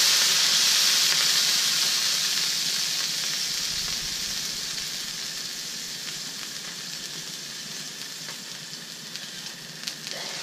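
Water sizzling into steam on the hot steel plate of a 17-inch Blackstone griddle around a basting dome, loud at first and dying away steadily as the water boils off. A single light click just before the end as the steel dome is taken hold of.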